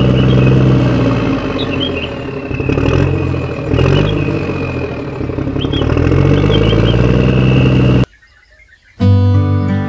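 Engine sound rising and falling in pitch as a toy RC tractor drives, with a steady high whine and birds chirping. It cuts off suddenly about eight seconds in, and music starts a second later.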